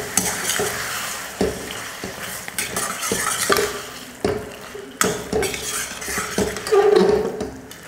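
Slotted metal spatula stirring mutton liver in yogurt masala in a stainless steel kadai: repeated scraping strokes and several knocks against the pan over a steady sizzle of frying.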